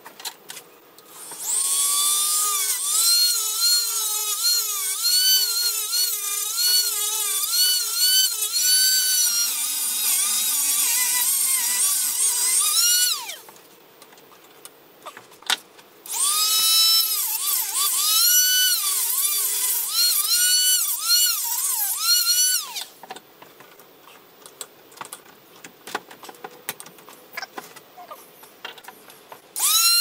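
Small corded rotary tool with a cut-off wheel spinning at high speed and cutting into a camera tripod head. The high whine dips and recovers in pitch again and again as the wheel bites under load. It runs for about eleven seconds, stops, runs again for about six seconds, then stops, leaving small clicks and knocks.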